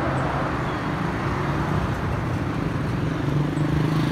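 Street traffic: a motor vehicle's engine running, its low hum growing louder near the end.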